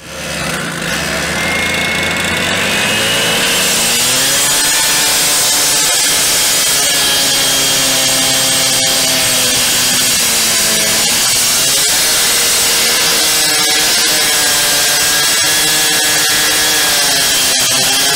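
Handheld gas cut-off saw cutting a concrete paver with its diamond blade. The engine winds up over the first few seconds and then runs steady, its pitch sagging briefly twice as the blade bites into the paver.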